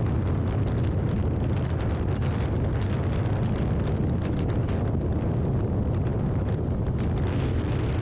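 Steady wind buffeting on the camera microphone of a motorcycle ridden at highway speed, a dense low rumble.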